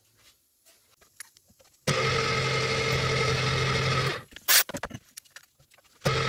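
Milling machine running with a small end mill cutting an aluminium heat-sink block, a steady machine sound with a hum and several steady tones. It starts abruptly about two seconds in, stops about two seconds later, and starts again near the end. A single sharp crack about four and a half seconds in is the loudest moment.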